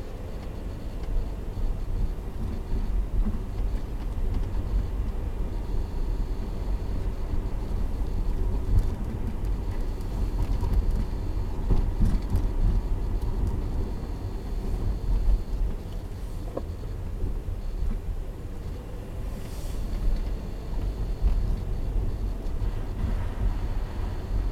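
A steady low rumble like a running vehicle, with a faint thin high-pitched tone that comes and goes a few times.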